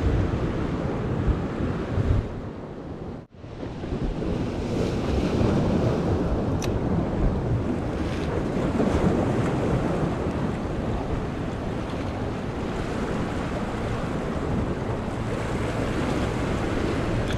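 Ocean surf washing against the boulders of a rock jetty, with wind buffeting the microphone. The sound drops out for a moment about three seconds in.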